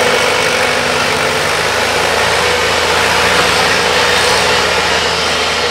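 Volvo excavator's diesel engine running steadily.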